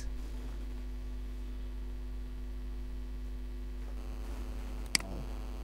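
Steady low electrical hum, with a single sharp computer-mouse click about five seconds in.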